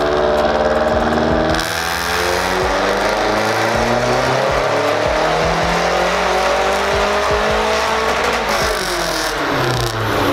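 Mazdaspeed3's turbocharged 2.3-litre four-cylinder running hard on a chassis dyno during a power pull, with the rollers spinning under the tyres. The engine note sweeps in pitch, falling and then climbing again through the run.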